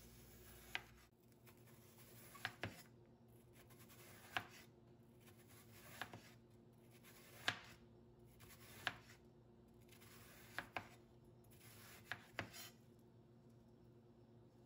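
Chef's knife slicing a halved onion, the blade knocking on the cutting board about ten times, one stroke every one and a half to two seconds, with a couple of strokes in quick pairs. The knocks are quiet.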